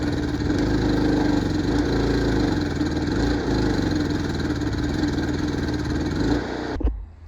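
Electric arc welding on a crack in a mower part: a steady, dense buzzing crackle from the arc that cuts off abruptly with a click near the end as the arc is broken. The welder takes the part for cast iron.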